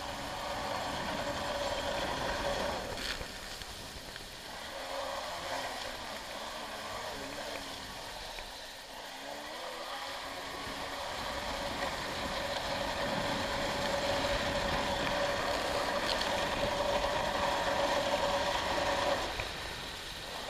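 Kawasaki X2 stand-up jet ski's two-stroke engine running under throttle, with the rush of water and spray against the hull. The engine note dips twice in the first half, then holds higher and louder before easing off about a second before the end.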